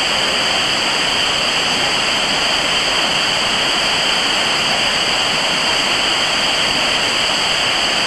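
Small waterfall pouring steadily onto boulders: a constant, loud rushing of falling water.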